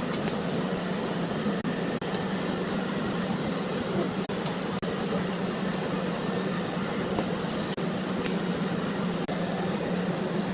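Steady machine hum with an even hiss, unchanging throughout, with a few faint high ticks.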